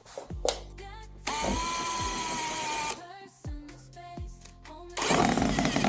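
Ryobi cordless drill-driver running in two bursts. First a steady whine for about a second and a half, then, about five seconds in, a rougher burst as it drives a screw into the sofa's wooden frame to fix a leg.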